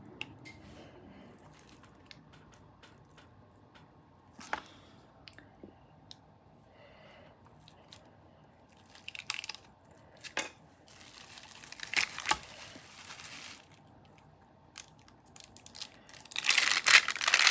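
Plastic cling wrap crinkling as hands handle it over a sheet of polymer clay, with scattered small taps and clicks. There are two longer stretches of crinkling, the louder one near the end.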